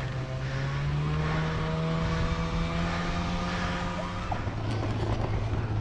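An engine running steadily, its low note dropping about four seconds in.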